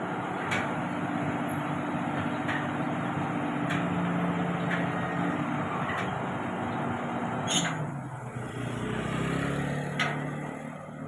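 Heavy machinery's diesel engine running steadily, with sharp clicks or knocks every second or two. About eight seconds in, right after the loudest click, the engine note drops lower.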